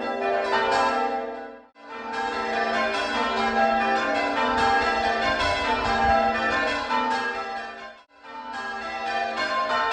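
Ring of six church bells rung in changes: five bells cast by Pennington in 1789 and a 1921 Taylor treble, with a tenor of about 8 cwt in G. The bells are odd struck. The sound drops out briefly twice, about two seconds in and near the end.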